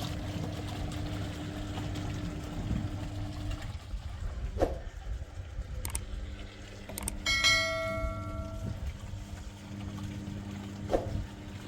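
A steady low hum with a few light clicks, and one sharp strike on a metal or glass object about seven seconds in that rings like a small bell and dies away over a second or two.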